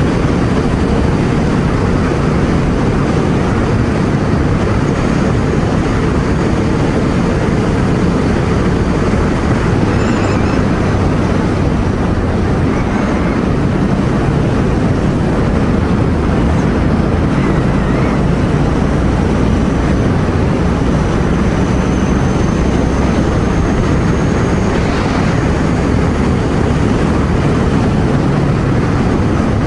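Ducati Scrambler Sixty2's air-cooled V-twin engine running at a steady cruise under heavy wind rush over the helmet-mounted microphone, ridden gently for break-in.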